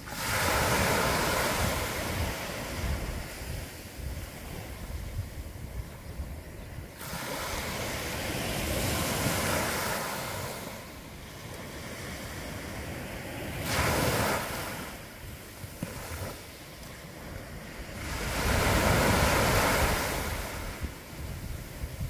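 Small sea waves breaking and washing up a coarse-sand beach, four surges of rushing water a few seconds apart, each swelling suddenly and then hissing away.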